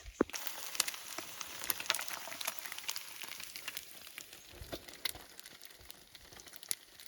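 Eggs and bread frying in butter in a pan over a campfire: a steady sizzle scattered with sharp crackling pops.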